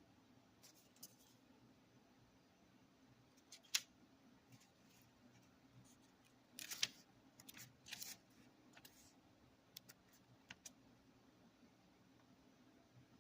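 Tarot cards being handled and sorted: light clicks, taps and rustles of cardstock, the loudest a sharp tap about four seconds in and a busy patch of rustling in the middle, over a faint low room hum.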